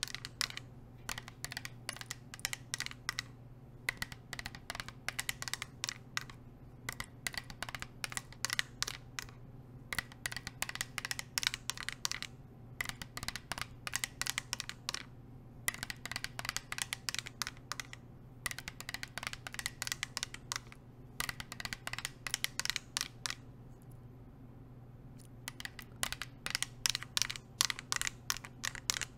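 Fingernails fitted with metal nail rings tapping rapidly on a water bottle, in quick flurries of clicks broken by short pauses.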